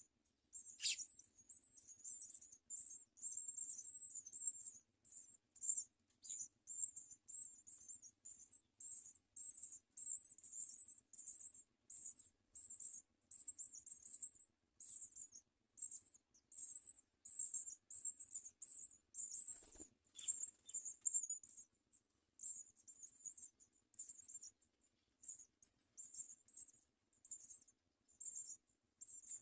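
House sparrow nestlings begging: a rapid, continuous run of thin, very high chirps that becomes sparser near the end. A brief low knock comes about two-thirds of the way through.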